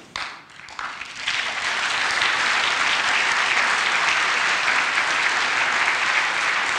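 Audience applauding in a large hall. A few scattered claps at first build within about a second into steady, dense applause.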